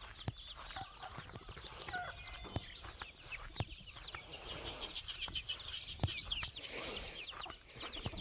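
Chickens clucking and chirping, many short high falling chirps overlapping, with a few sharp knocks among them.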